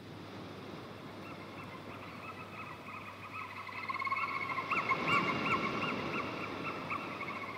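Repeated high, warbling animal calls over a soft rushing background, growing louder towards the middle. This is the nature-sound opening of a music track.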